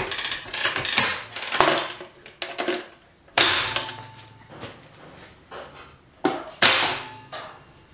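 Hands working the front-panel controls and test-lead connections of a Hyundai HAT12 air circuit breaker: a quick run of clicks and knocks, then three sharp clunks with a short ring, one about three and a half seconds in and two close together near the end.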